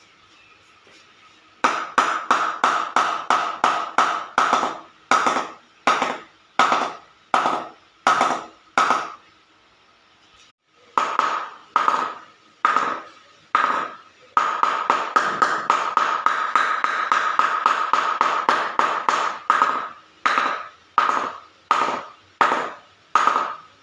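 A cricket ball bounced over and over on the face of an English willow cricket bat. Each hit gives a sharp ping with a brief ringing tone. The hits come in quick runs of about three or four a second, then slow down, with a short pause midway.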